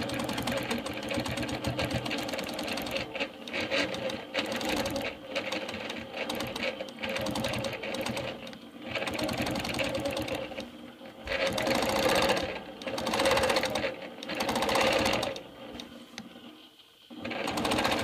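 Longarm quilting machine stitching, its needle running in rapid strokes that speed up and slow down as the machine head is guided along a quilting ruler. Near the end it almost stops, then picks up again.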